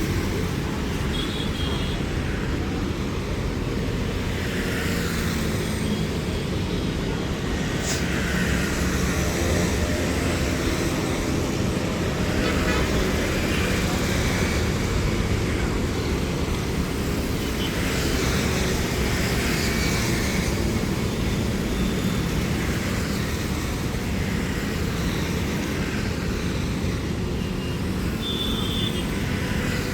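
Steady low rumbling background noise, even in level throughout, with no clear single source.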